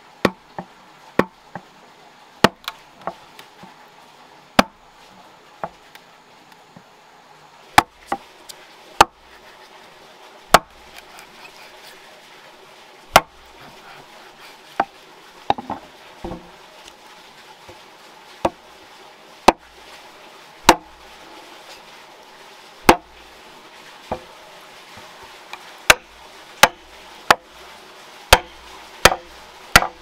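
Sharp, irregularly spaced strikes on wood, some single and some in quick runs, as a chisel and wedges are driven into a log to split it lengthwise.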